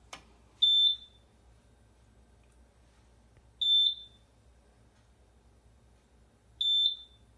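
Piezo beeper of a home fire alarm system giving three short, high beeps about three seconds apart while the system is being reset after a smoke detector test. A single click comes just before the first beep.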